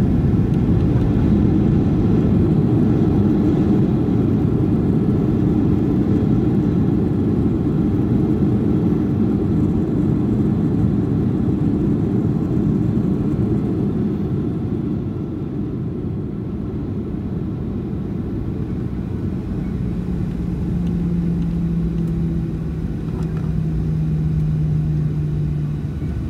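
Boeing 737-800 cabin noise during the landing rollout: a steady rumble from the CFM56 engines and the wheels on the runway, easing a little as the jet slows. A steady hum comes in about twenty seconds in.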